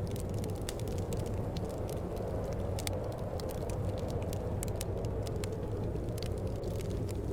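Wood fire crackling in a fireplace, with irregular sharp pops and snaps over a steady low rush of wind.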